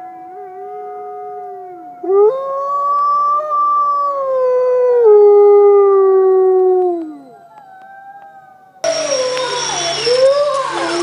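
Wolves howling together: one holds a steady high note while another howls lower. About two seconds in, a loud howl comes in and falls in pitch in steps before sliding down and ending near seven seconds. Near the end, several wolves' howls overlap over a noisier background, with an abrupt change of sound.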